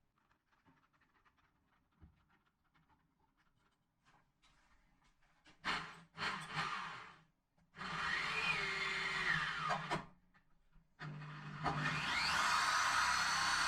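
Power drill running a homemade adjustable hole saw in short runs, after a few faint clicks: two brief spurts about six seconds in, then two longer steady runs, the motor pitch sweeping as it speeds up and slows down.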